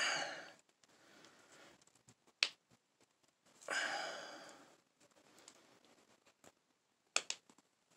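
Small clicks of metal and hard plastic as a brush handle presses the firing-pin retaining pin into an AK-47 bolt: one sharp click about two and a half seconds in and two quick clicks near the end. Two breathy exhales of effort come at the start and about halfway through.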